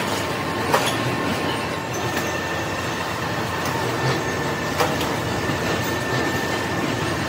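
Steady din of workshop machinery running, with a faint steady whine, broken by a few sharp metallic clanks: one at the start, one just under a second in and one about five seconds in, as the hanging cast gear and its hoist chain knock about.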